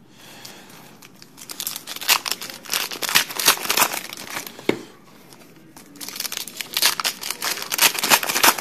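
Trading-card pack wrapper being torn open and crumpled, in two bouts of crinkling, the second near the end.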